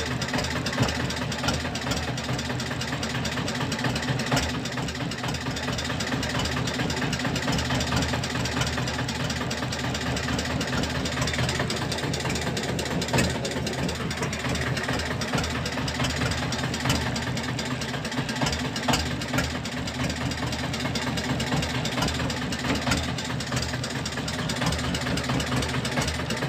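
Fishing boat's engine running steadily at idle, an even low pulsing drone with no change in speed.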